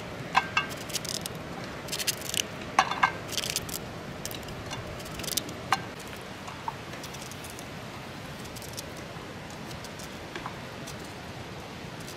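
A knife cutting a green vegetable by hand, with the pieces dropping into a metal bowl of water. Sharp cutting clicks come thick in the first six seconds, then only now and then, over a steady faint hiss.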